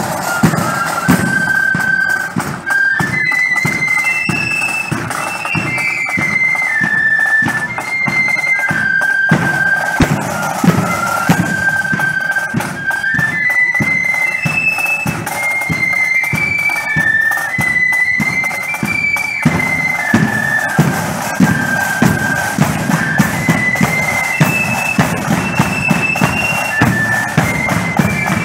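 A marching flute band playing a tune in unison on flutes, a high stepping melody. Drums beat a steady marching rhythm under it.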